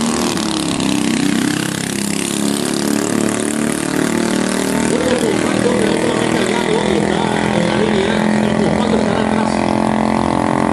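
Junior dragster's single-cylinder engine at full throttle on a pass down the drag strip. Its pitch climbs over the first few seconds, then it holds a steady drone.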